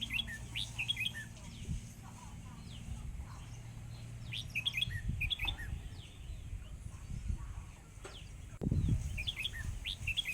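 A songbird singing a short phrase of quick high chirps three times, about every four to five seconds, outdoors among flowers. A brief low rumble comes near the end.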